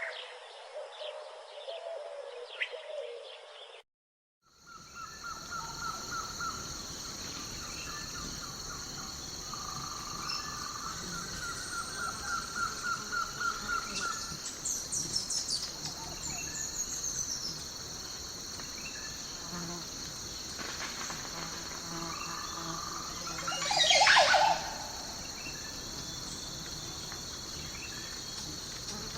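Daytime countryside ambience: a steady high-pitched drone of crickets and insects, with birds chirping and trilling over it and one louder call sweeping down in pitch late on. It opens with a few seconds of other bird calls that cut off into a moment of silence before the ambience starts.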